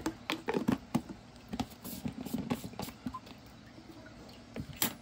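Light clicks, taps and scrapes of a plastic spoon scooping powdered milk and knocking against plastic containers, quick and irregular at first, then a pause and one sharper click near the end.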